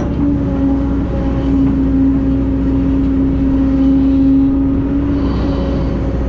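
Diesel engine of heavy earthmoving machinery running steadily under load. A steady droning tone sits over the engine noise from just after the start until near the end, then drops back.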